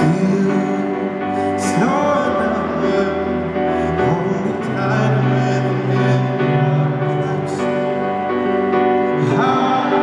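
Live concert music, recorded from the stands of an arena: a slow ballad with sustained accompaniment, and a male singer's voice coming in about two seconds in and again near the end.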